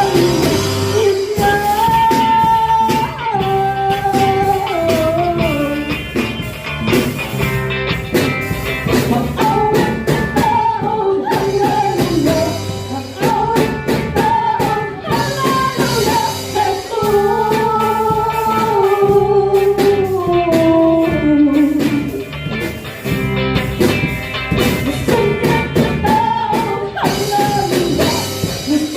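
Church band playing a worship song live: a singer carries the melody over a drum kit keeping a steady beat, with guitar.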